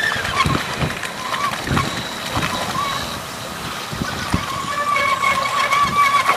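Cono weeder's toothed cone rotors churning through the waterlogged mud between paddy rows: repeated sloshing and splashing of water and mud. A voice is heard in the background, more so near the end.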